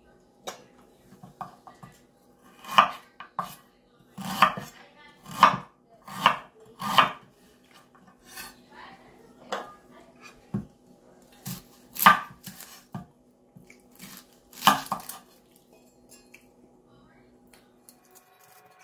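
Kitchen knife chopping ginger root on a bamboo cutting board: a series of separate, unevenly spaced knocks that thin out and stop about fifteen seconds in, over a faint steady hum.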